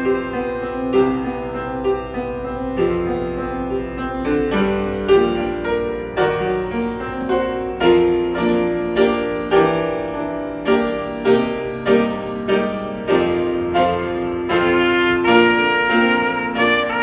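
Trumpet and grand piano playing a hymn arrangement together. Partway through, the trumpet rests and the piano carries on with repeated struck chords about twice a second; the trumpet comes back in near the end.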